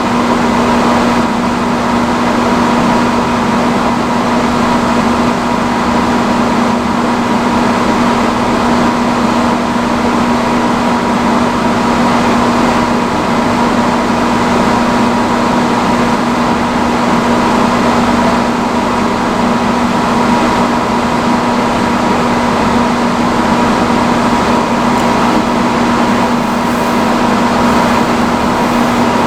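Vintage salon hood hair dryer running on its highest setting: a loud, steady rush of blown air with a constant motor hum.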